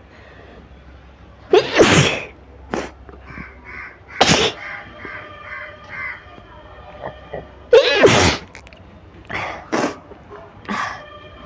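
A young woman sneezing again and again, set off by sniffing chikni sneezing powder. The biggest sneezes come about two, four and eight seconds in, with smaller ones between and after.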